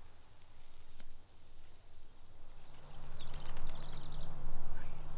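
Woodland ambience: a thin, steady high insect drone, with a short quick run of bird chirps about three and a half seconds in. A low steady tone comes in about halfway through.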